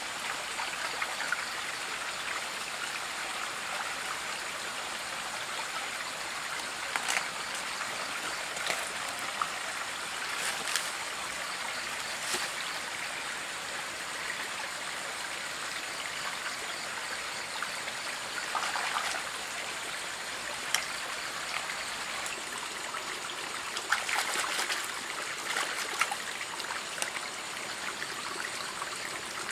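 Shallow rocky stream running steadily, with scattered short splashes and clicks from hands picking snails among the stones and handling a banana leaf.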